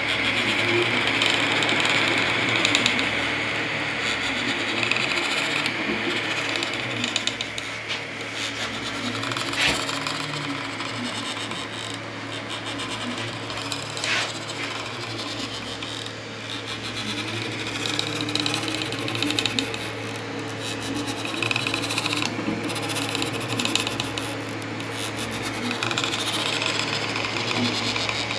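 3D printer running a print: its stepper motors whir and buzz in shifting pitches as the print head and extruder move, over a steady fan hum, with a few light clicks.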